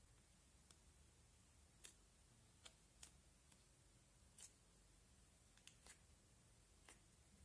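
Faint, scattered clicks and small pops from fingers poking and pressing slime in a plastic tub, about nine separate little snaps spread irregularly over the stretch.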